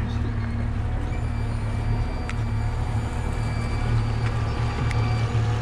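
Yamaha 100 hp outboard motor running at low speed, a steady low rumble.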